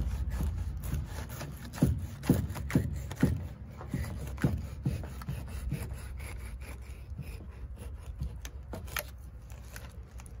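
Fillet knife sawing through the skin and flesh of a flathead catfish against a wooden board. It makes short rasping strokes and scrapes, about two a second for a few seconds, then more scattered.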